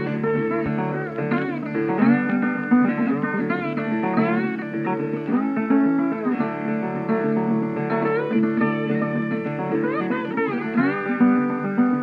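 Background guitar music, with many notes sliding up in pitch over a steady picked accompaniment.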